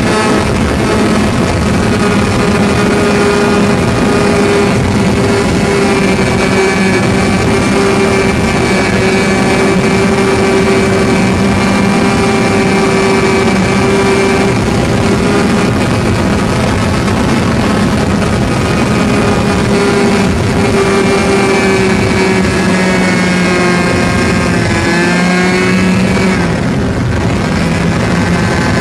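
O.S. 61 SF two-stroke glow engine on an Ultra Easy Stick RC plane running steadily at high throttle in flight, heard up close from on board. Its pitch dips and wavers, then comes back up, near the end.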